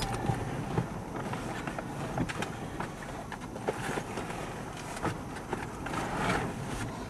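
Steady wind noise with a low rumble, broken by scattered, irregular light ticks and taps.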